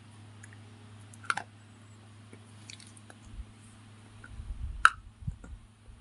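Someone bites and chews a white slate bar of pressed clay, with a sharp crunching snap about a second in and a louder one near five seconds. Smaller crackles and low chewing crunch sound in between.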